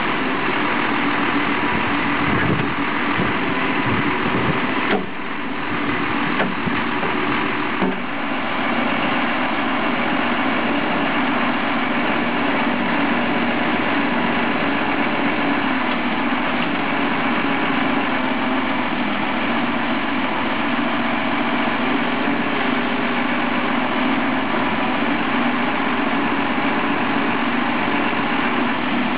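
The Cummins diesel engine of a Volvo BM 6300 backhoe loader running steadily, with a few short knocks about five and eight seconds in.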